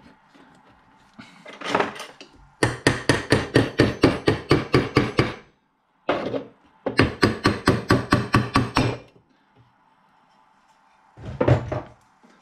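Rapid hammer taps on the dental compressor motor's end cover, driving it off the rotor bearing: two runs of quick, even taps, about six a second, the first a little longer than the second.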